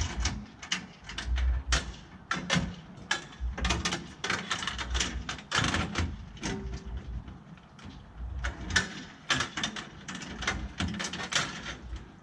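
A run of irregular knocks and clatter from the recoil pull-starter of a 15 horsepower Johnson outboard motor being yanked over and over. The engine turns over but does not fire.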